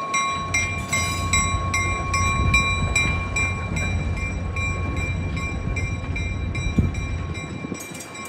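Alco RS-1 diesel locomotive running with a low rumble as it pulls its coach away, while a bell rings rapidly at about three strikes a second. A brief thud comes about two-thirds of the way through.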